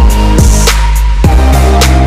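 Background electronic music with a heavy bass and a steady drum beat.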